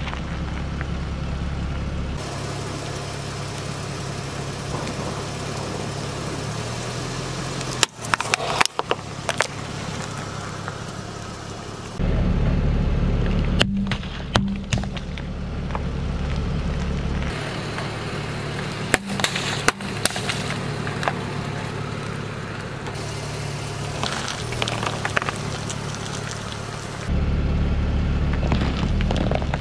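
A car idling and creeping forward while its tyre crushes plastic bottles and other objects: several bursts of sharp cracks and crunches over a steady low engine hum, which changes abruptly between short clips.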